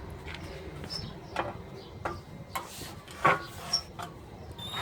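Irregular light clicks and taps from handling the parts of a folding pleated fly screen, its frame pieces knocking together as it is worked on by hand; the firmest tap comes a little past three seconds in.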